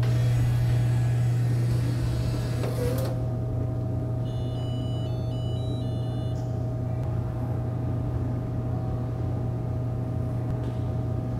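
Royal Merlin IV soda machine humming steadily once powered up, with a hiss that cuts off about three seconds in. About four seconds in, a quick run of short high electronic beeps at several pitches, from the Nayax VPOS Touch card reader booting up.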